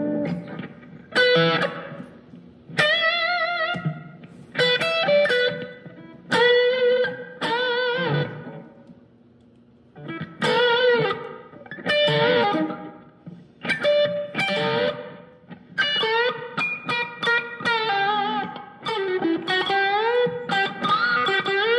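Electric guitar played through a Sonicake Matribox II Pro multi-effects processor preset: single-note lead phrases with string bends and vibrato, broken by short pauses and a longer one about halfway through.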